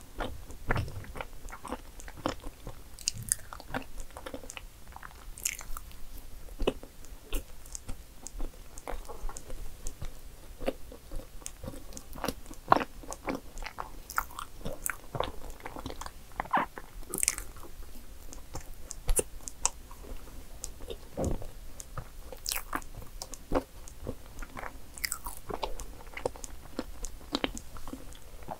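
A person chewing and eating dark chocolate cake, with many short, irregular mouth clicks and smacks.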